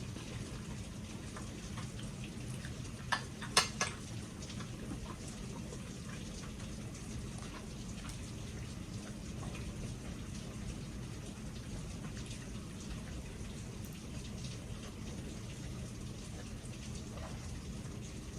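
Heavy rain patting on a window: a steady patter of drops with scattered light ticks over a low steady hum. A few sharper clicks stand out about three to four seconds in.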